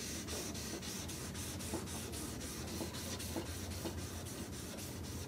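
Fine-grit sandpaper (800–1000 grit) on a flat sanding block rubbing over a hard-fill dent repair on a painted cabinet door, in short, quick, even strokes about five a second. The soft scratching is the fill being sanded level with the surrounding paint.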